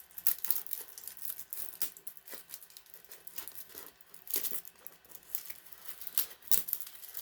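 Plastic wrapping on a box crinkling and tearing as it is pulled open, a run of irregular crackles.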